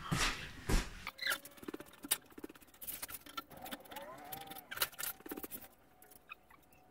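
Scattered light clicks and knocks of hand tools and metal parts being handled during shock absorber work, a little louder in the first second.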